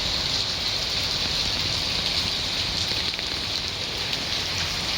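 Steady rain falling, a dense even hiss flecked with small drop ticks.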